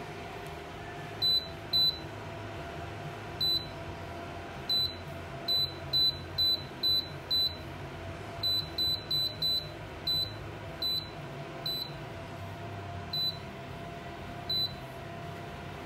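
Control panel of a Lahome A305 electric ceramic stove beeping as its buttons are pressed to change settings: about eighteen short, high beeps, some single and some in quick runs, over a steady low hum.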